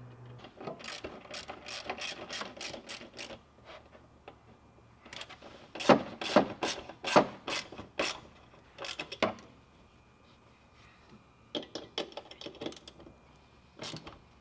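Worm-drive clamps on a Fox shock's remote-reservoir mount being tightened with a hand tool on a 5/16 head. The clicks come in quick runs of about four a second, with several runs and short pauses between them.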